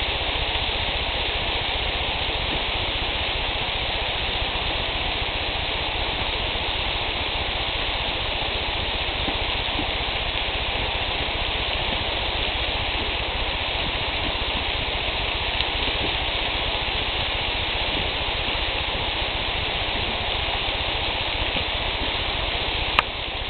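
Steady sizzling hiss of bacon-wrapped quail cooking on a grill, with a single sharp click near the end.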